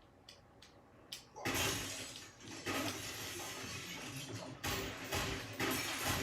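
Action-movie soundtrack playing in the background: a few faint clicks, then a loud crash about a second and a half in, followed by continuing loud crashing and shattering noise with several more sudden hits.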